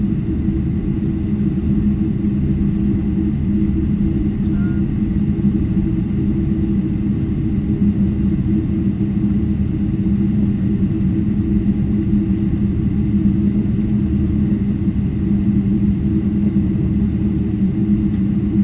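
Airliner cabin noise while taxiing: a steady low rumble with an even drone from the jet engines at taxi power, heard from inside the cabin.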